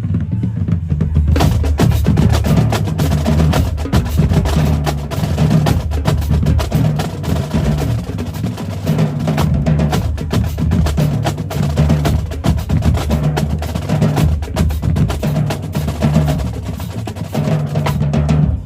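Marching drumline playing a fast cadence: rapid snare drum strokes over low bass drum notes, with the full line coming in about a second in.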